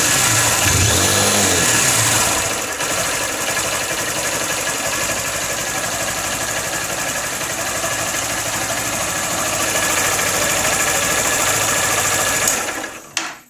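Honda CG 160 Fan's single-cylinder engine running at low revs, with a strange annoying noise in the engine, a little buzz. The owner says some put it down to the cam chain and others to the fuel injector working. The pitch rises and falls briefly in the first two seconds, then holds steady until the sound stops just before the end.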